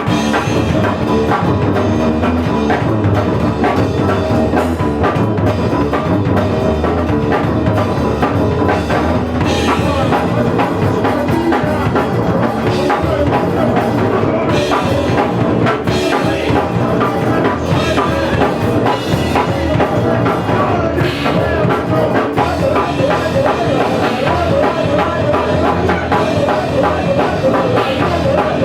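Live punk rock from a drums-and-bass-guitar duo: a busy drum kit over a bass line, playing loud and without a break.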